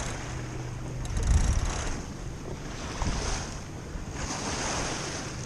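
Wind buffeting the microphone and water washing along a sailboat's hull, coming in surges, with the strongest low gust of wind on the microphone about a second in.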